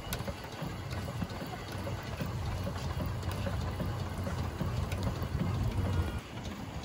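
Blackstone combined vertical steam engine and boiler running, a steady low pulsing beat with faint mechanical clicks.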